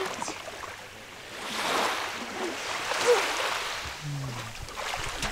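Small waves washing onto a sandy beach, swelling and fading.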